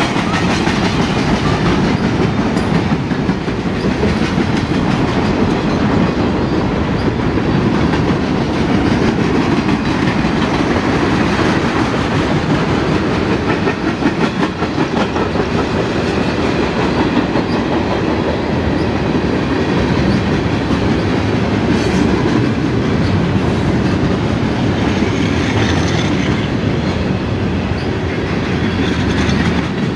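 Freight train of gondolas and tank cars rolling past at close range, its wheels clattering steadily over the rail joints.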